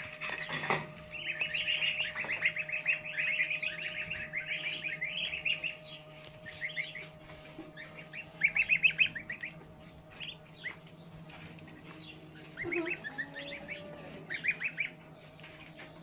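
A flock of ducklings and goslings peeping: rapid runs of high chirps that come in bouts, busiest at the start, then shorter bursts in the middle and near the end.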